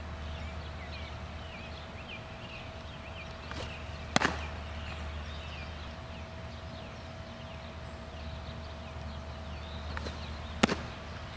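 Two sharp pops about six seconds apart: a fastball smacking into the catcher's mitt, each just after a fainter click from the delivery. Birds chirp throughout, over a steady faint hum.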